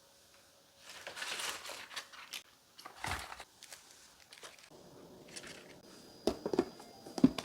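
Plastic wrapping crinkling as it is handled, followed by a knock and several short, sharp clicks near the end.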